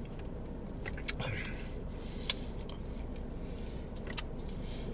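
Quiet eating of chicken wings: a few sharp mouth clicks and smacks of chewing over a low steady rumble.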